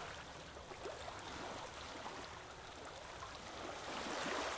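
Small seawater waves lapping and washing over a sandy shore, with a soft fizz as the water runs back through the sand; the wash swells up near the end.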